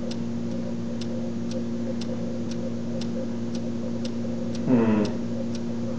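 Steady ticking, about two ticks a second, over a low steady hum.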